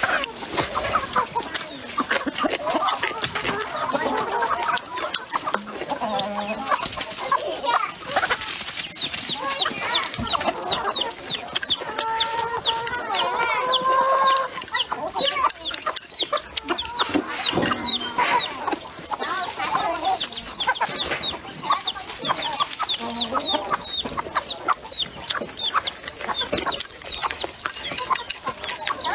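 Domestic chickens clucking close by, with a longer, drawn-out call near the middle. Chewing and eating sounds run alongside.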